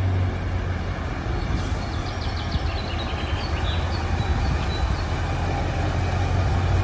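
Scania semi-truck's diesel engine running at low revs with a steady low hum as the tractor unit and its trailer pull slowly forward.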